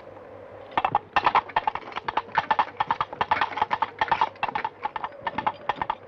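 Horse hooves clip-clopping in a rapid, uneven clatter, faint at first and loud from about a second in.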